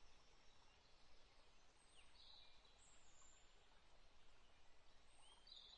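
Near silence: faint background hiss with a few short, faint high-pitched chirps, about two and five seconds in.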